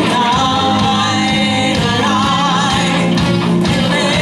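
Live rock band playing a pop-rock cover with a lead singer, drum kit and electric guitar.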